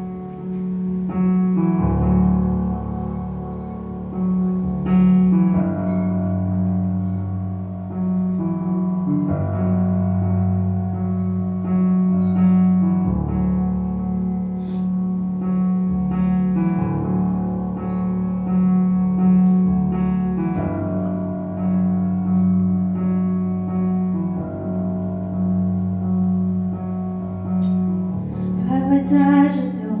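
Piano played on a Nord Electro 4 stage keyboard: a slow ballad intro of sustained chords over a repeating low note, the harmony changing every few seconds. Near the end a woman's voice comes in singing.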